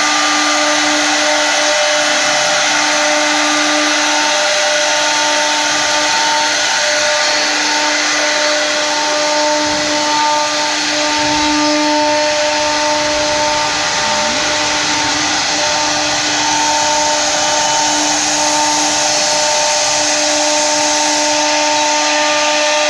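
Four-spindle 3D CNC router (STYLECNC STM1325-4) running, its spindles carving wooden workpieces turned on rotary axes. A steady high whine from the spindle motors sits over a constant hiss of cutting.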